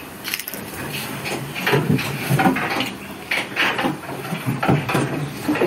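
Irregular knocks and rattles of wood against wood, from the slats of a wooden goat pen.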